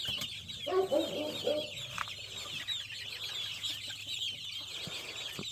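Chickens clucking in a flock, with a short run of clucks about a second in, over a constant high chirping from many birds.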